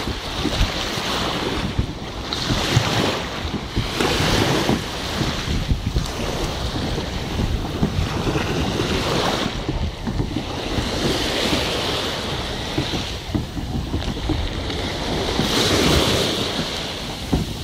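Wind buffeting the microphone over the wash of small waves on the shore, a rumbling noise that swells and eases every few seconds.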